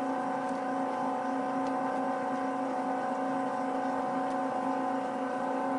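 Arcobaleno AEX18 tabletop pasta extruder running, its motor turning the auger to force semolina dough through a chitarra die: a steady, even hum that does not change.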